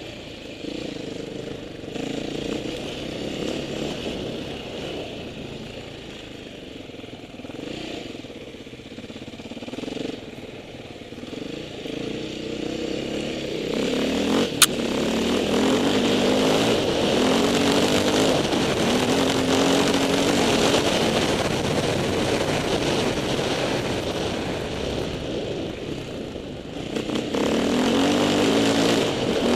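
Off-road motorcycle engine running and revving up and down as the bike rides, getting louder about halfway through and easing off briefly near the end before picking up again. A single sharp click about halfway through.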